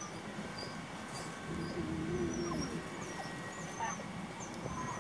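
A dog whining: one wavering whine about a second long, a little before the middle.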